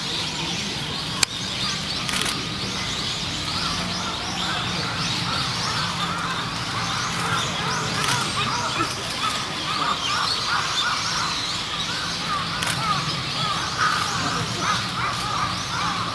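Many birds calling over one another in a dense, continuous chatter of short chirps, over a steady low hum, with one sharp click about a second in.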